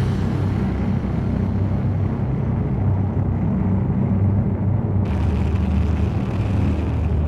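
A steady low rumble, like a running vehicle, with a hiss that grows brighter about five seconds in.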